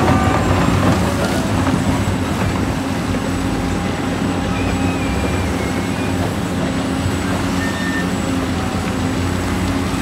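Heavy diesel construction machinery running steadily with a dense low engine hum. A few faint, short high squeals come through over it.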